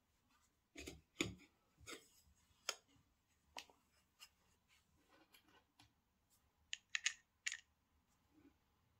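Irregular light clicks, taps and short rustles of product packaging being handled and opened, with a quick run of three sharp clicks about seven seconds in.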